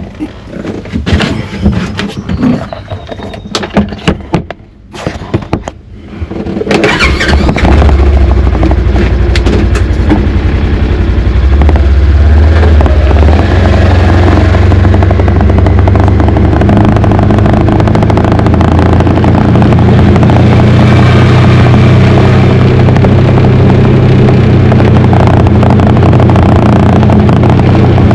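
Scattered knocks and clicks, then about six and a half seconds in a vehicle engine starts and keeps running, picking up in pitch about twelve seconds in and again a few seconds later.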